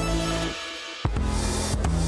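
Electronic background music with drums and a steady beat. The bass drops out for about half a second midway, then the beat comes back in.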